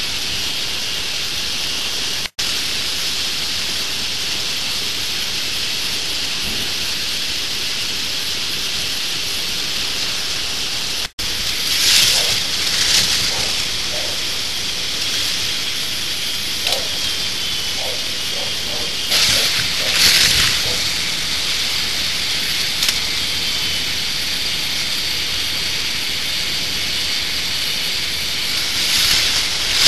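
K'NEX model roller coaster running: a steady rattling hiss from the plastic track and chain lifts. Several times the train clatters louder as it passes close by, and the sound drops out twice for an instant.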